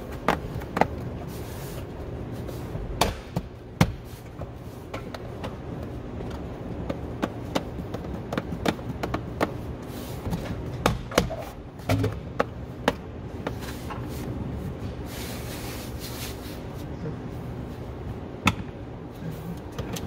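Irregular light clicks and taps of hands working a cable and plastic interior trim panels, over a steady background hum.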